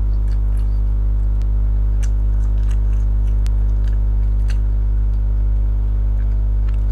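A person chewing food close to the microphone, with scattered short mouth clicks and smacks, over a steady low hum.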